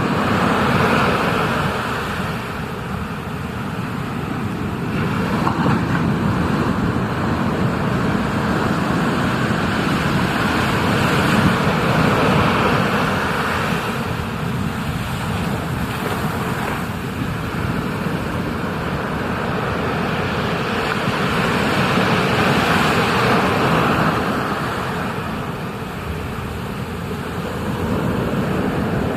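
Ocean surf and rushing water, a continuous noise that swells and eases every several seconds.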